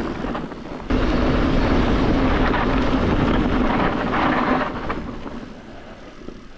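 Wind buffeting the action camera's microphone as a mountain bike rolls fast downhill on a dirt track: a loud, even rumble that jumps back up suddenly about a second in, then fades over the last two seconds as the bike slows.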